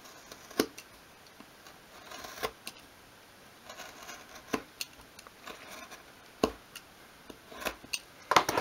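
Craft knife scoring a thin strip of craft wood along a steel ruler on a cutting mat: scattered sharp clicks and short scratchy strokes as the blade is drawn through again and again. Several scores are needed because the cut runs against the grain of the wood.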